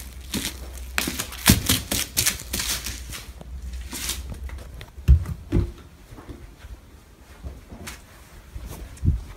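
Bubble wrap popping under a bare foot: a quick, irregular run of sharp pops and crackles lasting about four seconds. A few dull thumps follow later.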